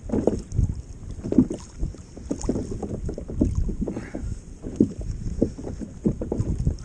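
Wind rumbling on the microphone and sea water lapping and slapping against a fishing kayak's hull, in uneven low thumps.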